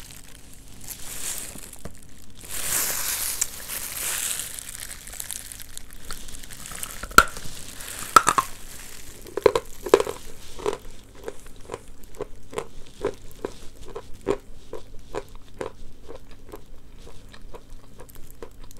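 Paper wrapping rustles, then a few sharp cracks as a piece of edible clay is bitten off, followed by steady crunchy chewing, about two to three crunches a second.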